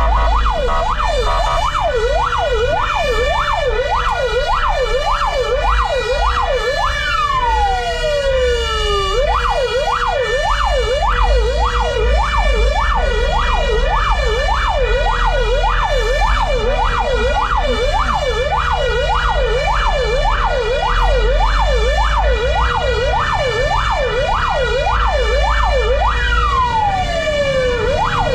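Fire engine's electronic siren in yelp mode: a rapid up-and-down wail of about two to three cycles a second, with a long falling tone sweeping down through it twice, over a steady low engine rumble.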